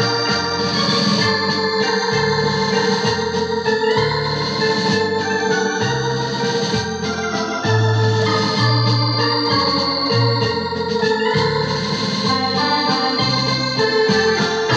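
Technics KN7000 arranger keyboard played live with an electronic organ voice: held chords and melody over a bass line that steps to a new note about every second.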